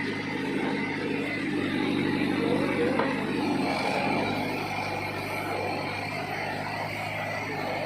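Mahindra Arjun Novo 605 DI tractor's diesel engine running steadily while it works a backhoe loader.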